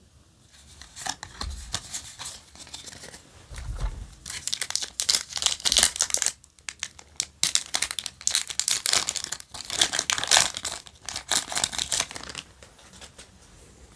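Foil trading-card booster pack being torn open and its wrapper crinkled, a run of crackling rustles starting about a second in, pausing briefly midway and stopping shortly before the end.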